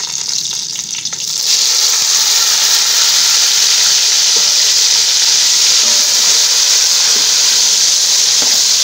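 Chopped tomatoes and green chilies hitting hot oil with fried onions, sizzling loudly. The sizzle swells about a second and a half in and then holds steady.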